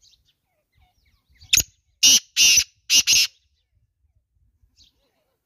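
Male black francolin calling: one loud, harsh, grating call of five notes in about two seconds, a short first note followed by four longer ones. Faint chirps of small birds come before and after.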